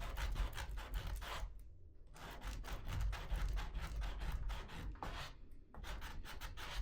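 Sandpaper rubbed by hand over a wooden piece in quick back-and-forth strokes, knocking off rough edges. The strokes come in three runs with two short pauses between them.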